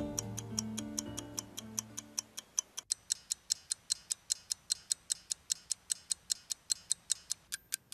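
Soft instrumental music fading out over the first two or three seconds, leaving a steady clock-like ticking at about four ticks a second. The ticks take on a deeper click near the end.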